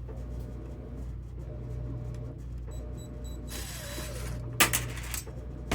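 A cordless drill-driver runs briefly, then a sharp knock and a couple of smaller knocks follow, over a steady low hum. It is a failed attempt at driving a screw.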